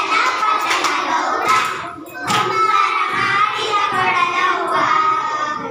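Hand claps from a group of dancing children: several sharp claps in the first half, over a high, wavering singing voice.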